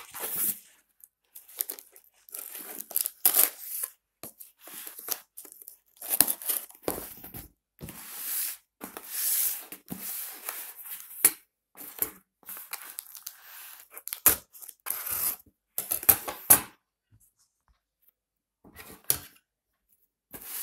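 Packing tape being cut and torn open on a cardboard shipping box: irregular ripping and scraping strokes with short pauses, and a crinkle of the package now and then. The sound mostly stops for a few seconds near the end.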